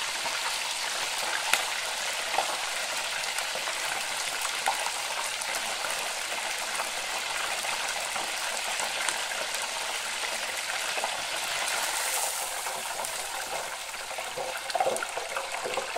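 Hot oil in a small deep fat fryer bubbling and crackling hard around two beef burgers, a steady racket with scattered pops, caused by the water in the burgers boiling off into the oil. Near the end the fryer basket is lifted out of the oil and the frying eases.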